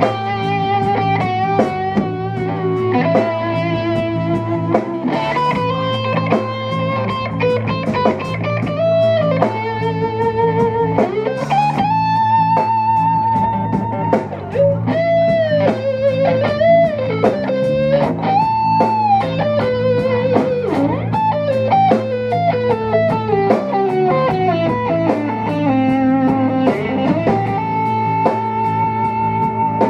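Live band playing: an electric guitar carries the lead line in long, bent and wavering notes over bass guitar and drums.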